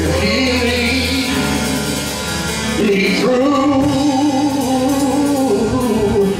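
Gospel singing: a voice holding long, slowly bending notes over instrumental backing with a sustained bass line.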